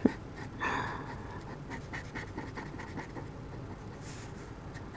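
Orange felt-tip marker rubbing on drawing paper in short, repeated colouring strokes, a faint scratching a few times a second. A soft breathy sound comes near the start and another about four seconds in.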